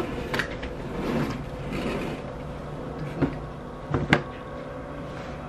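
Soft rustling and a few sharp knocks in a small room over a low steady hum, the loudest knock about four seconds in.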